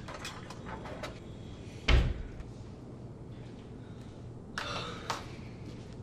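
Kitchen cabinet door handled with a few light clicks, then shut with one heavy, deep thud about two seconds in. Two softer knocks follow near the end, over a faint steady low hum.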